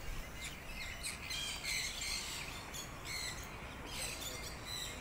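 Many birds chirping together in an aviary, a dense chorus of short, high, overlapping chirps with no pause.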